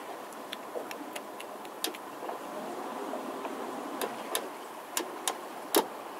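Stern-drive engine of a Sea Ray 280 bow rider idling with a steady hum, with scattered sharp clicks and taps through it.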